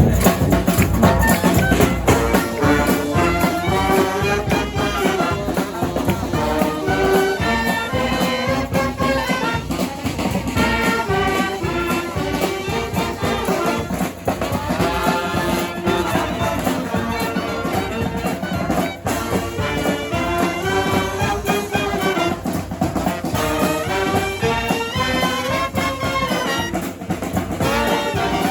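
Second-line brass band playing an instrumental passage: horn lines over a steady beat.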